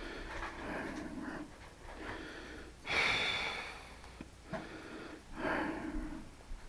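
A man breathing heavily close to a headset microphone, about three long breaths in and out.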